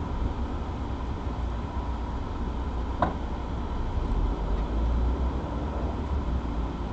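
Low, steady rumble of a car driving slowly, heard from inside the cabin through a windshield-mounted dashcam, with a single sharp click about three seconds in.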